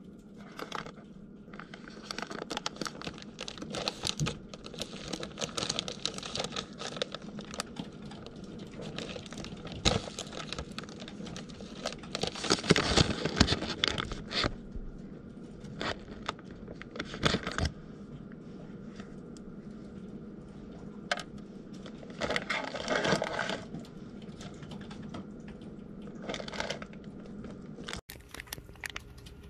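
Plastic cookie wrapper crinkling and rustling as it is handled, in irregular bursts, loudest about halfway through.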